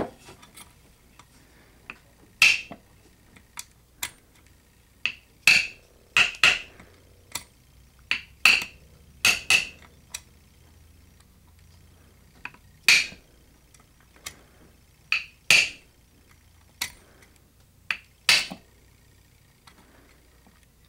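Bump key in a padlock being struck over and over with a wooden handle: about twenty sharp, metallic taps at uneven spacing, some in quick pairs, each with a short ring. It is a bump-key attack on a lock fitted with Master Lock BumpStop pins, which gives way to it.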